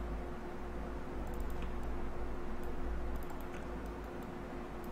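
A few light clicks of a computer mouse and keyboard, in small scattered clusters, over a steady background hum and hiss.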